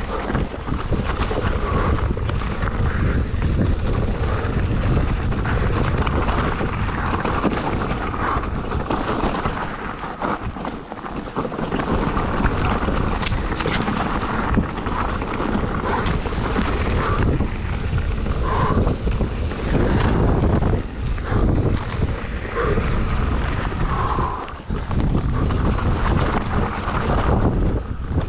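Wind buffeting an action camera's microphone, mixed with the rattling and knocking of a mountain bike bouncing fast over a rough downhill trail. Both ease off briefly twice.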